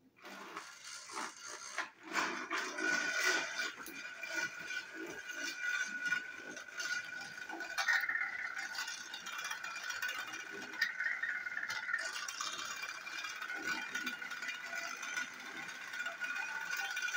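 Battery-powered TrackMaster toy train running along plastic track: a steady motor-and-gearbox whine with the wheels clicking and rattling over the rails.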